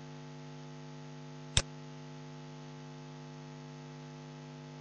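Steady electrical hum, a stack of low tones, with one sharp mouse click about one and a half seconds in.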